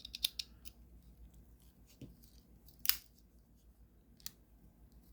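Small spring-loaded scissors of a Victorinox Compact Swiss Army knife snipping a few times in quick succession, then two sharp metal clicks, the louder about three seconds in, as the folding tools snap on their backsprings.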